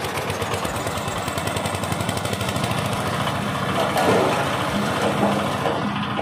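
Small engine driving a coconut-husk shredder, running with a fast, even beat. It grows louder and rougher about four seconds in.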